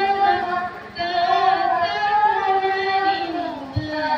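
A girl singing a Santali song (sereng) into a handheld microphone, in long held notes that slide between pitches, with a short breath about a second in.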